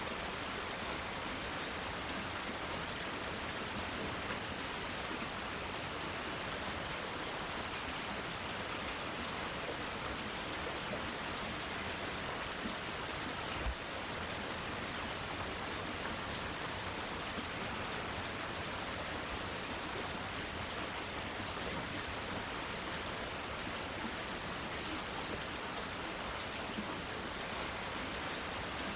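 Steady rain falling, an even hiss with scattered small drop ticks. One brief low thump about halfway through.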